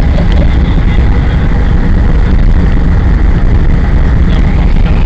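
Airbus A380 on its landing rollout, heard from inside the cabin as a loud, steady rumble that is strongest at the low end.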